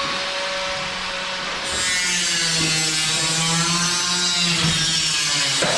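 A power tool running steadily, its pitch wavering slightly.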